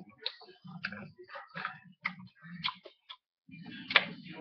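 Close-up mouth sounds of someone chewing a Heath toffee bar: an irregular run of wet clicks and smacks, louder near the end.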